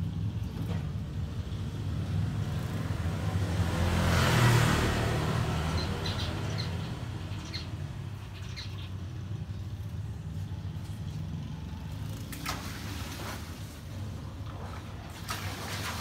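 Steady low traffic rumble, with a vehicle passing by about four to five seconds in. Small birds chirp faintly a few times, and a few sharp clicks come near the end.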